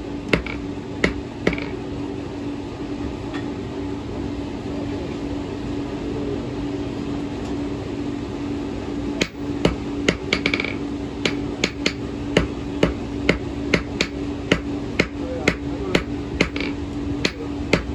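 Blacksmith's hand hammer striking red-hot iron on a small anvil, forging a horseshoe's iron into a ring. A few blows come at the start, then a pause of about seven seconds, then steady hammering at about two blows a second from halfway on, over a steady low hum.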